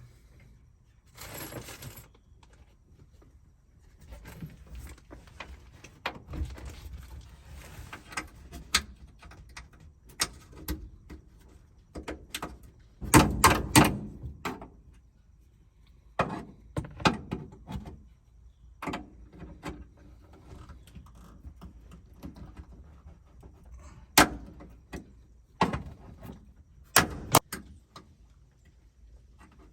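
Hand work on small parts: irregular clicks, knocks and rattles as small pieces are handled and fitted, with a louder cluster of knocking about halfway through.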